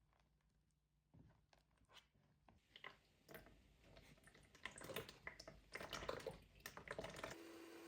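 Faint scattered clicks and rustles of small things being handled at close range, growing busier toward the end. They stop abruptly near the end, giving way to a steady low hum.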